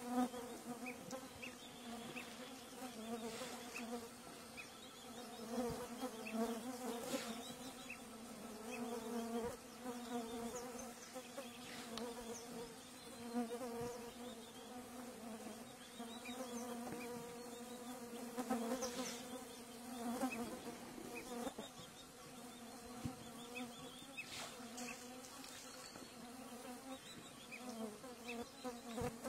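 Flying insects buzzing steadily close by, a wavering drone that never stops, with a few scattered faint clicks.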